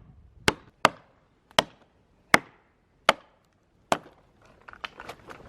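Repeated heavy blows on wood, six sharp strikes most of them about three quarters of a second apart, then a few lighter knocks near the end: chopping to free a chainsaw stuck in a cut in a tree.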